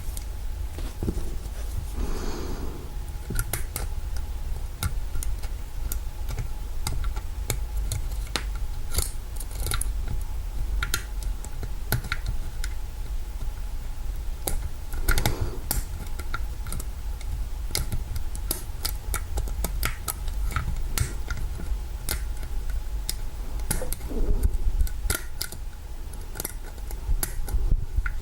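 Lock pick and tension wrench working the pins of an old Kwikset knob lock: small, irregular metallic clicks and scrapes, over a steady low hum.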